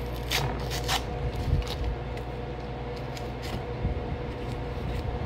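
Paper wrapping being torn and peeled off a brick of cornstarch. There are two sharp tearing rasps in the first second, then softer rustles and tears, over a steady low hum.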